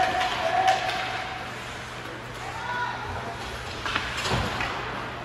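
Ice hockey game sounds: shouting voices with sharp clacks of sticks and puck, and a heavy thud a little past four seconds in.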